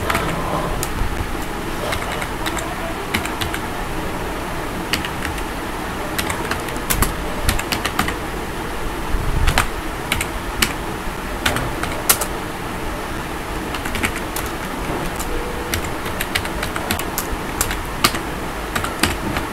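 Typing on a computer keyboard: irregular keystroke clicks, some in quick runs, over a steady background noise.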